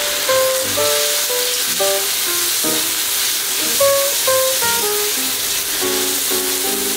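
Light plucked-string background music, a run of short picked notes, over a steady sizzle of chopped tomatoes and onions frying in oil in a cast iron kadai as they are stirred.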